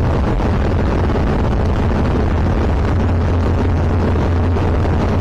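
Zenith CH701 light aircraft's engine and propeller running steadily in flight, heard from inside the cockpit as a constant low drone.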